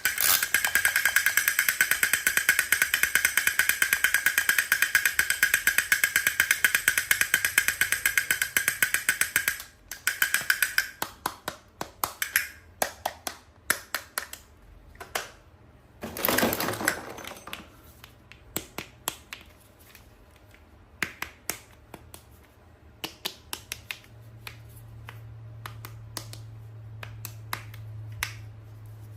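Toy and packaging handling: a fast, continuous clicking rattle with a steady ringing tone for about ten seconds, stopping suddenly. Then scattered clicks and taps, with a brief rustle about sixteen seconds in.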